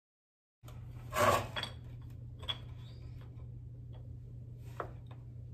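Hard objects handled on a tile floor: a yellow plastic miter box and a wooden trim piece being set down and positioned. There is one sharp clatter about a second in, then a few lighter clicks and knocks, over a steady low hum.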